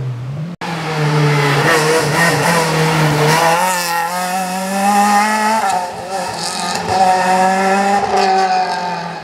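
Renault Clio rally car's four-cylinder engine driven hard through a tight bend, its pitch rising and falling with throttle and gear changes, with bursts of tyre squeal. The sound drops out abruptly just after the start, then fades as the car pulls away near the end.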